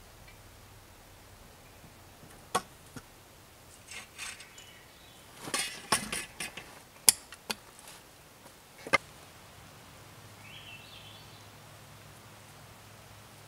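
Scattered sharp wooden knocks and clatter as poles and tools are handled at a log pile, a handful of separate hits, most of them bunched about four to seven seconds in and a last one about nine seconds in.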